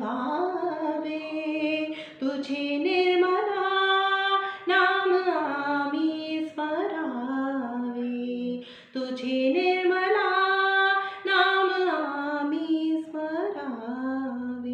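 A woman singing a Marathi devotional song unaccompanied, in long held notes that bend and ornament, with short breaks for breath.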